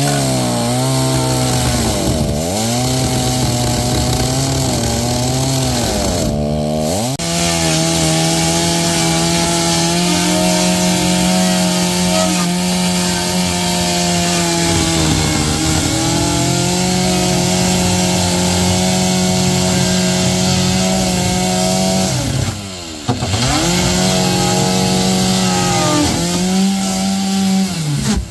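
Chainsaw running at high revs as it cuts into a Sea Ray boat to get the gas tank out. The revs dip and pick back up a few times, and drop off at the end.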